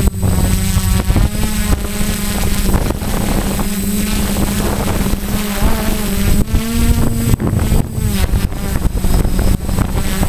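Quadcopter's electric motors and propellers buzzing as it flies, heard through its onboard camera. The pitch climbs about two-thirds of the way in and drops back soon after. Wind buffets the microphone.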